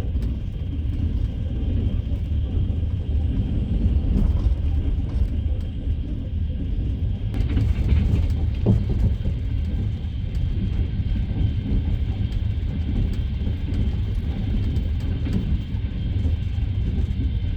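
Moving train heard from inside a passenger carriage: a steady low rumble with the clatter of the wheels on the rails.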